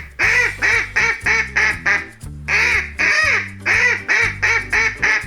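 Duck quacking: a longer quack followed by a quick run of about six shorter ones, the whole run heard twice, over background music.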